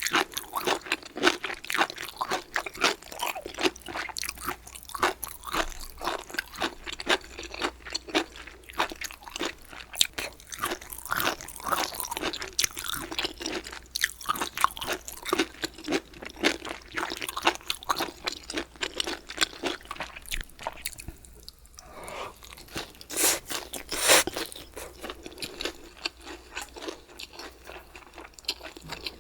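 Close-miked chewing of crunchy food, with dense crisp crunches; most likely bamboo shoots. The crunching pauses briefly a little past two-thirds of the way through, then a loud bite follows.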